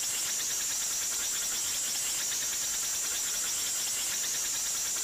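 A steady high-pitched hiss or trill with a faint fast flutter in it, holding level without a break.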